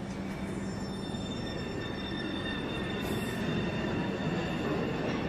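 New York City subway shuttle train moving off after its doors close. Several steady high squealing tones sit over the rumble of the cars and a low hum.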